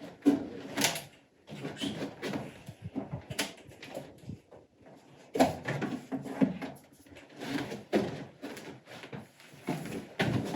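Irregular knocks, clicks and sliding scrapes of a window being handled: the sash opened and the screen taken out.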